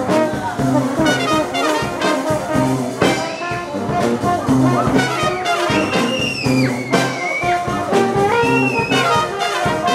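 Street brass band playing live: trombone and saxophones over a steady beat of bass drum, cymbal and snare drum. High wavering notes ride over the top in the second half.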